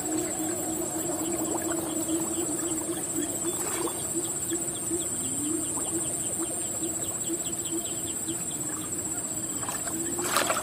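Outdoor riverside ambience: a steady high-pitched drone and a steady low hum, with faint rapid bird chirping in the middle.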